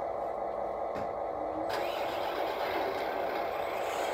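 Radio-controlled 6x6 scale truck running with a steady mechanical hum, a click about a second in, then a hissier, fuller sound from about two seconds in as the truck begins to creep forward under its load of sand.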